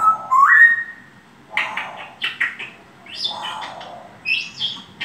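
African grey parrot vocalising: a whistle that steps up in pitch at the start, then bursts of short chirps and squawks.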